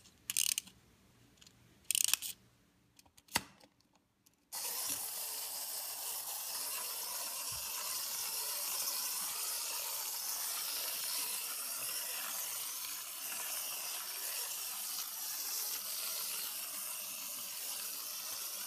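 Small wind-up toy train: a few ratchet clicks from its clockwork being wound in the first seconds, then from about four and a half seconds a steady mechanical hiss as the released clockwork runs the train along the track.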